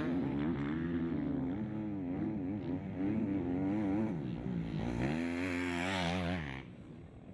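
KTM 350 enduro motorcycle's single-cylinder four-stroke engine revving up and down as the rider works the throttle over rough sand. It comes on loudest and highest just before it drops away, about six and a half seconds in.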